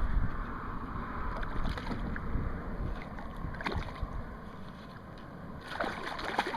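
Wind rumbling on the microphone over water at the shore, with a few small knocks and clicks.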